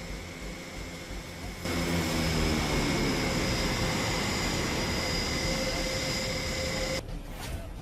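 Airbus A400M Atlas turboprop engines running with the propellers turning: a steady whine of several high tones over a wide rush of propeller and engine noise. It gets louder about two seconds in and drops off suddenly near the end.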